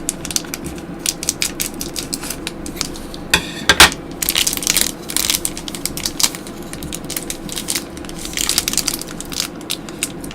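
Packaging being handled and pulled open, crinkling and crackling in irregular bursts, loudest a little under four seconds in.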